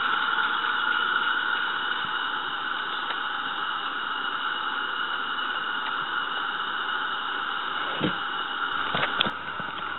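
Roundhouse Fowler live-steam model locomotive giving off a steady hiss of escaping steam, fading slightly as it runs away, with a couple of faint clicks near the end.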